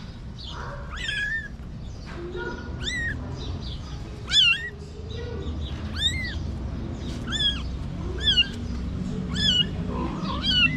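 Newborn kitten mewing, a high-pitched cry repeated about once a second, each call rising and then falling in pitch.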